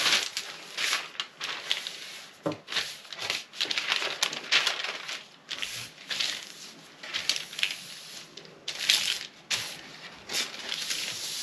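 Fabric being folded over and smoothed flat by hand: a string of irregular rustles and swishes.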